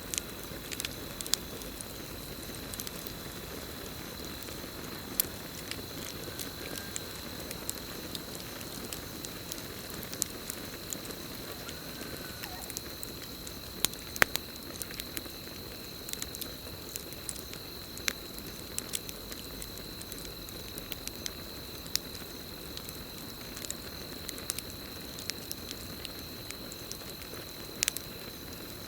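Campfire crackling: irregular sharp pops and snaps over a low, steady hiss of burning wood, with a steady high trill of crickets underneath.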